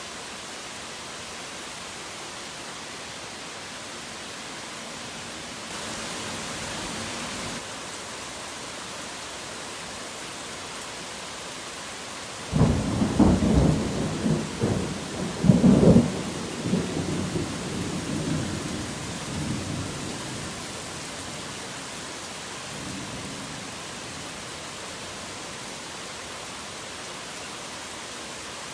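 Steady rain falling, with a sudden loud clap of thunder about halfway through that crackles and rumbles for several seconds before dying away.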